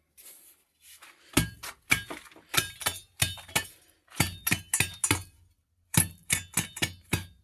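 Metal blade of a jembe (hand hoe) striking a hard, sandy henhouse floor in quick runs of knocks, each with a short metallic clink. There are three runs of strikes with brief pauses between them, about three or four knocks a second.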